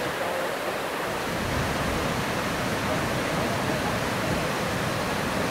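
Steady rush of the Kuang Si Falls, a tall multi-tiered waterfall pouring down several cascades into pools.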